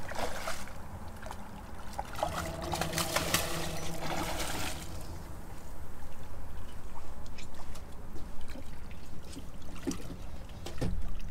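Water splashing and trickling as a released striped bass kicks at the surface and swims off. The splashing is busiest in the first few seconds and dies down after about five seconds, leaving a steady low rumble.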